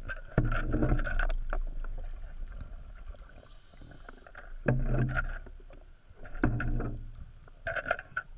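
Water surging and bubbling around an underwater camera, in uneven bursts about half a second to a second long with quieter stretches of churning water between them.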